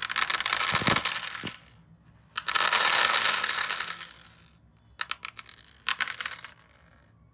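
Many small transparent plastic RJ45 connector plugs rattling and clattering together in two long spells, followed by a few separate sharp clicks.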